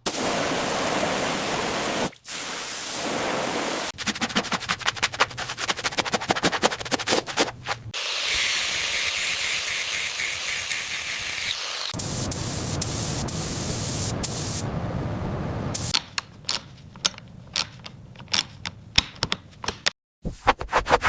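A string of short workshop sounds cut together, changing every few seconds: a steady hiss for the first few seconds, then rapid clicking over the hiss. A high spraying hiss runs from about eight to twelve seconds in. Near the end come sparser, separate clicks.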